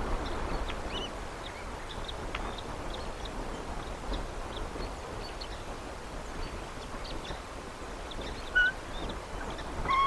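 Steady outdoor hiss with many faint, short, high bird chirps scattered throughout, and one louder short chirp about a second and a half before the end.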